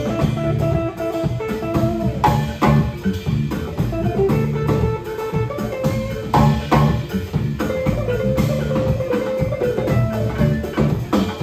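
Live band playing an upbeat instrumental groove. Electric guitar and bass guitar play over a drum kit and hand drum, with a wooden xylophone-type instrument struck with mallets.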